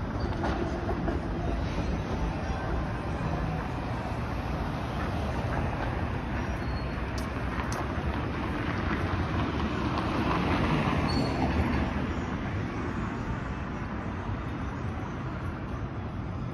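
City street traffic noise with a TTC Flexity Outlook streetcar running away along the rails. The noise swells and fades about two-thirds of the way in.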